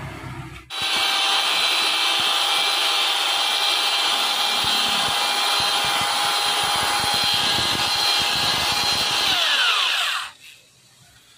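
Electric drill spinning a boring cutter down through a motorcycle cylinder bore to rebore it, running at a steady speed for about nine seconds, then switched off and winding down near the end.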